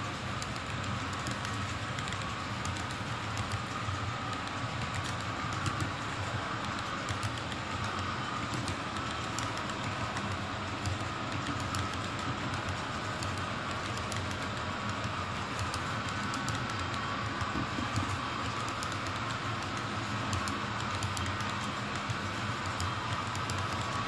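Long model train of autorack cars rolling past on a model railway: a steady whirr of running wheels with many rapid, light clicks from small wheels crossing the rail joints.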